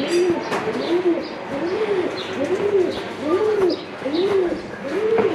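Pigeons cooing in a steady, even run of low coos, about three every two seconds, with small birds chirping briefly and high above them.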